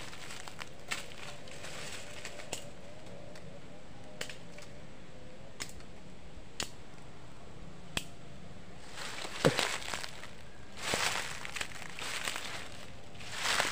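Dry leaves and twigs crackling and snapping underfoot and by hand: scattered single sharp snaps at first, then louder crunching rustles near the end.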